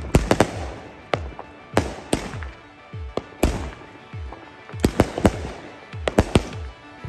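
Consumer fireworks going off: an irregular series of sharp bangs, some in quick pairs, as shells and rockets are set off in the street.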